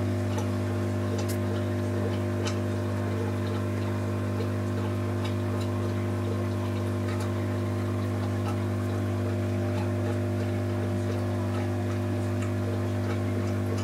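Steady electric hum of an aquarium air pump driving sponge filters, a low buzz with overtones that does not change, with faint irregular ticks of bubbles over it.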